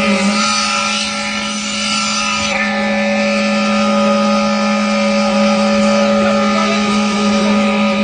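Construction machinery running with a steady motor drone and a constant low hum while concrete is being placed.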